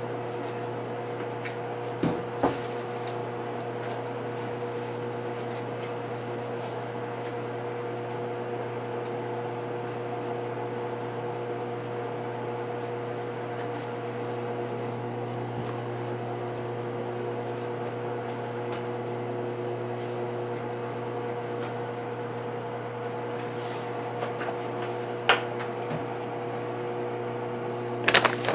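Steady hum of a running kitchen appliance. A few sharp knocks and clicks break in about two seconds in and twice near the end.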